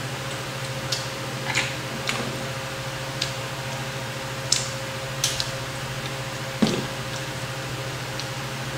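Hot sauce bottle and small glass dish being handled as sauce is poured into the dish, giving about seven scattered light clicks and taps. Under them runs a steady low electrical hum.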